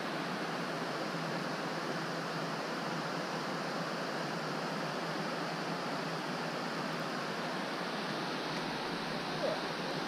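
Water pouring steadily over a river weir: a continuous, even rush.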